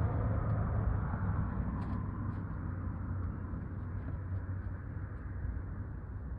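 Road traffic noise fading away over a steady low engine hum, with a few faint high ticks about two seconds in.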